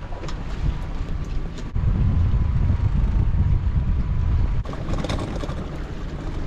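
Wind buffeting the microphone over a small fishing boat's outboard motor running. A faint steady whine sounds for a few seconds in the middle, and a few clicks come near the end as the pot hauler starts bringing rope aboard.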